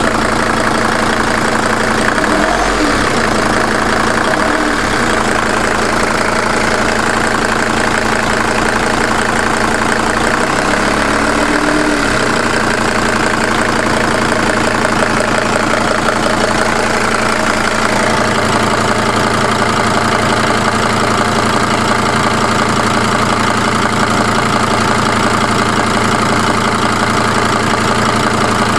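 Mercedes-Benz W210 E290's OM602 five-cylinder turbodiesel idling steadily when warm, with a knock that the owner cannot place and suspects may be an engine fault.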